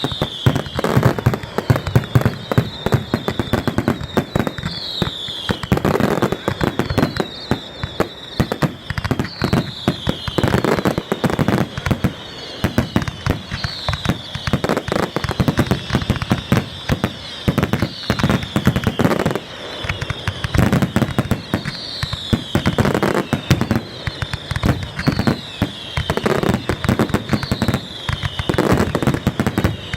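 Fireworks going off continuously: a dense run of bangs, pops and crackles. Short falling whistles sound roughly once a second.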